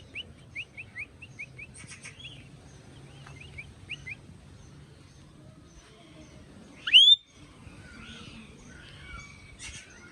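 Birds chirping: a quick series of short chirps near the start, scattered chirps after, and one loud whistled call that rises and falls about seven seconds in.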